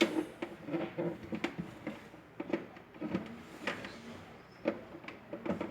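A series of irregular clicks and knocks, like objects being handled and set down.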